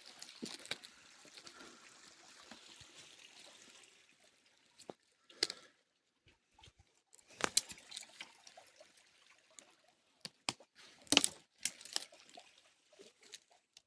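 Water trickling for the first few seconds, then scattered sharp crackles and snaps, the loudest two coming about halfway through and near the end.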